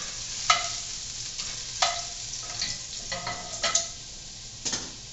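Sausage and onions sizzling in a pan while a metal utensil knocks against the cookware several times, each knock ringing briefly.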